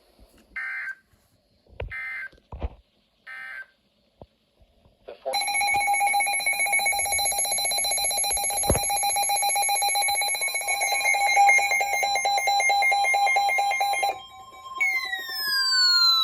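Emergency Alert System header: three short warbling data bursts of SAME digital code, about a second and a half apart. A couple of seconds later comes the loud steady EAS attention signal, a two-tone alarm with a fast beating pulse, lasting about nine seconds and cutting off abruptly. After it, a steady tone near 1 kHz sounds with a falling glide under it, marking the start of a new warning.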